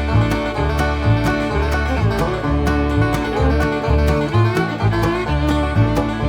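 Background music: an upbeat bluegrass-style tune with plucked strings and a steady beat.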